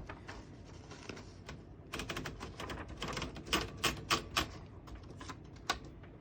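Manual 1936 Underwood 12 desktop typewriter clacking: a run of sharp mechanical strikes and clicks begins about two seconds in, with a last single strike near the end.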